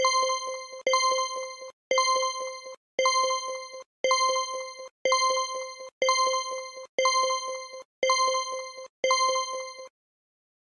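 Countdown timer sound effect: an electronic ding sounding once a second, ten times, each note fading away before the next. It stops at the end of the countdown, just before the ten-second mark.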